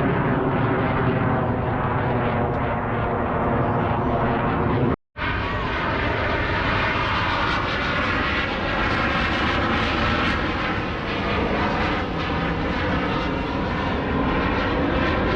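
Aircraft engine drone, loud and steady, with a pitched hum running through it. The sound drops to silence for a split second about five seconds in, then carries on.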